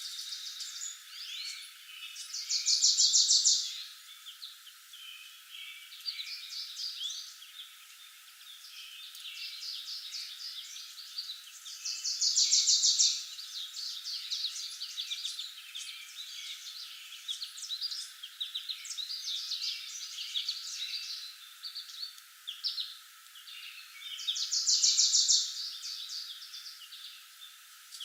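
Dawn-chorus-like mix of many songbirds chirping and singing, thin with no low sounds. A loud, rapid trill about a second long stands out above the rest three times: a few seconds in, near the middle and near the end.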